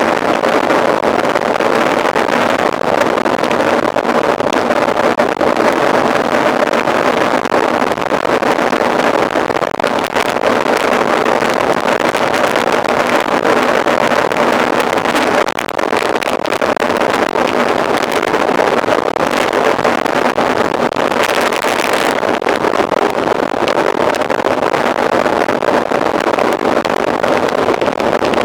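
Steady rushing wind-and-riding noise on the microphone of a camera carried on a mountain bike being raced, with a few brief knocks and rattles from the bike over rough ground.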